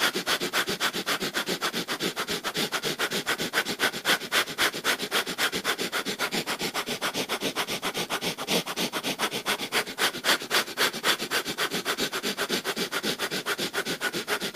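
Breath of fire, the Kundalini yoga breathing exercise: rapid, even, forceful breaths through the nose, each a sharp exhale pumped from the navel, in a steady rhythm of several breaths a second.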